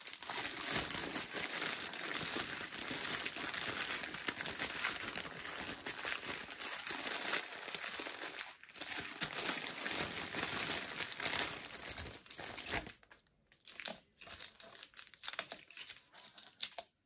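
Small plastic bags of diamond painting drills crinkling continuously as a hand sorts through them, dropping to quieter, scattered rustles about thirteen seconds in.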